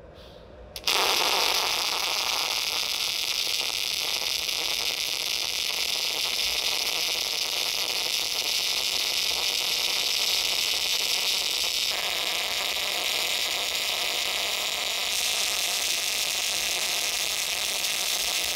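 MAG welding arc in argon shielding gas with CO2 being mixed in, striking about a second in and then running as a steady hiss and crackle. Its character changes abruptly twice, about twelve and fifteen seconds in.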